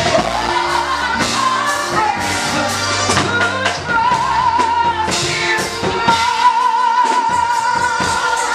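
Live gospel music: a woman sings through the church PA over keyboard and drums, with a steady beat and some long, wavering held notes.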